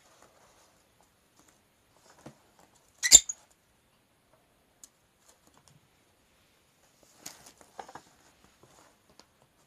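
A blue masked lovebird scrabbling inside a box folded from flyer paper, making sparse paper rustles and scratches; one sharp crackle about three seconds in, then a cluster of small scratchy rustles near the end.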